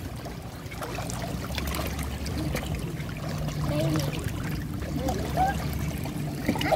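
Shallow sea water sloshing and trickling around rocks and wading children, with small splashes throughout.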